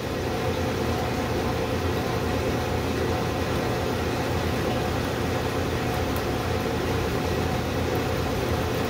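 Drill press running steadily while a small cobalt drill bit cuts a safety-wire hole through the head of a hardened grade 8 bolt.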